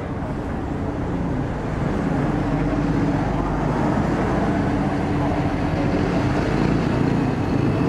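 Heavy road traffic, with a large tour coach passing close by. Its engine and tyre noise grow louder from about two seconds in, over the steady noise of the traffic.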